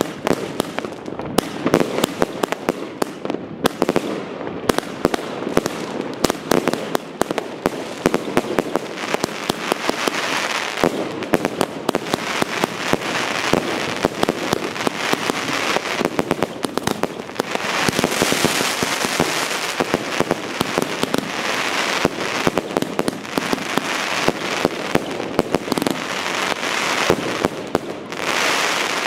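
Chain-fused consumer firework cakes (VIP cakes) firing shot after shot: a dense, rapid string of launch thumps and bursts, with several stretches of continuous crackling hiss from glittering stars.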